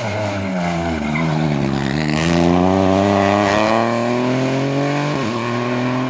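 Rally car's engine approaching at speed: the revs fall about a second in, then climb steadily under hard acceleration, with a brief break for a gear change about five seconds in.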